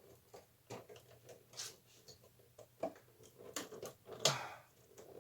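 Replacement circuit breaker being wiggled into the breaker panel: a run of small irregular clicks, scrapes and knocks as its prongs are worked into place, the loudest knocks in the second half.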